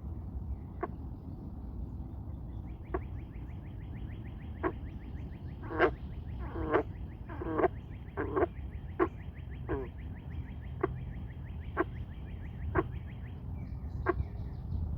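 Frog calling: a series of short croaks, roughly one a second, with several coming close together in the middle.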